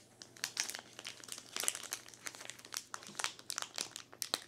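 Plastic wrapper of a One Piece card game booster pack crinkling in the hands, a run of irregular sharp crackles as fingers twist and work at its top to open it.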